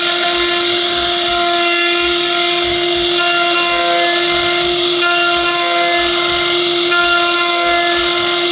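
CNC router spindle running steadily with a high whine over a constant hiss, its upper tones shifting now and then.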